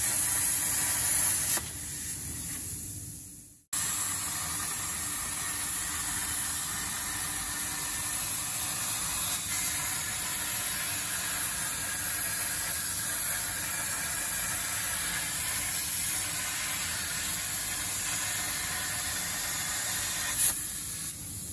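CNC plasma torch arc cutting 4 mm Corten steel sheet: a steady loud hiss of the plasma jet. It fades out about three and a half seconds in and comes back abruptly, with a brief click near the end.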